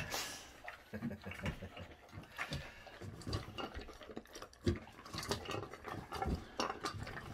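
Boxer dog eating dry kibble from a stainless steel bowl: irregular crunching and clicks of food and muzzle against the metal bowl.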